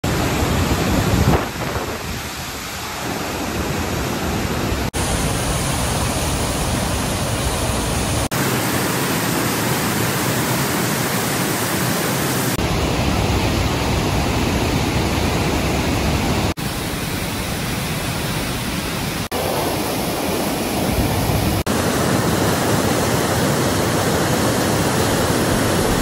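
Rhine Falls' rushing water: a loud, dense, steady roar, heard as a string of short clips that change abruptly every few seconds.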